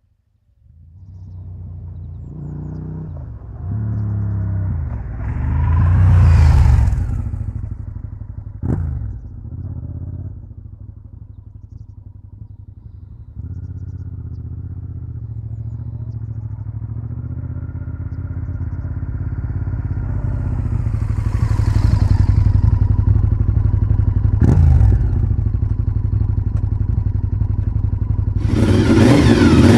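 Honda VTR1000 Firestorm's V-twin through a SHARK aftermarket exhaust, ridden along the road: the engine note swells and fades twice as the bike comes and goes, with two brief sharp blips. Near the end it gets suddenly loud close by as the bike arrives and revs.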